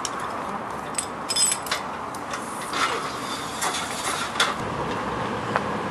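Rescue equipment clicking and clinking irregularly: metal harness fittings and the aluminium ladder being handled, with a short run of ringing metallic clinks about a second and a half in, over steady outdoor background noise.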